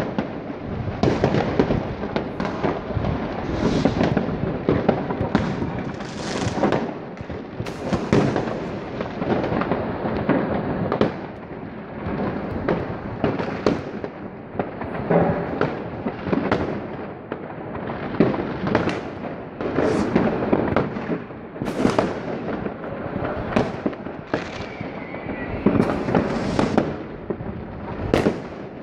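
New Year's Eve fireworks and firecrackers going off all across a city at once: a constant din of crackling and bangs, with louder reports every second or so. Near the end a short falling whistle sounds through it.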